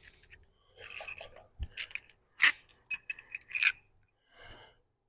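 Scattered light metallic clinks and taps of a bolt and hand tools handled against a steel truck frame rail, with a dull thump about one and a half seconds in; the sharpest clinks come a little past halfway.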